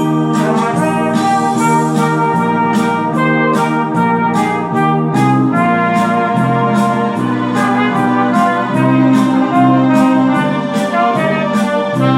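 Solo trumpet playing a classical trumpet concerto in D minor: sustained, changing melody notes over an accompaniment with a steady beat of about two strokes a second.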